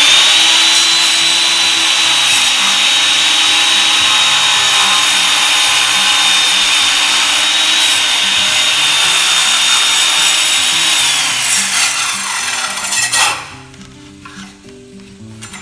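Electric power saw spinning up, running with a steady high whine and cutting a wedge from a scrap piece of 4x4 wood, then winding down about eleven seconds in.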